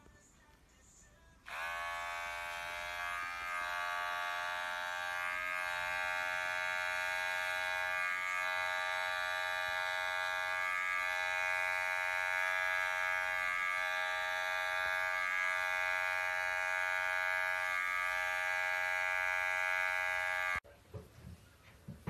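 Electric pet hair clipper switched on about a second and a half in, running with a steady high-pitched buzz while trimming the fur on a cat's paw, with small brief dips along the way, then switched off near the end.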